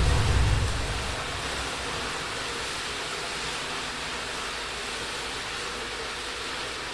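Turkey fryer oil fire: the low roar of a fireball dies away over the first second or so, leaving a steady hiss of flames burning around the fryer pot.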